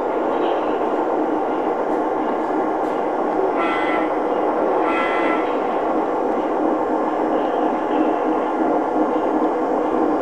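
O-scale model train cars rolling past on three-rail track: a steady rumble of metal wheels on the rails. Two short higher-pitched tones cut through it about four and five seconds in.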